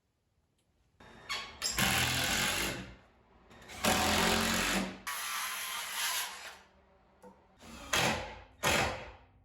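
Handheld power tool run in five short bursts of about a second each, with brief pauses between.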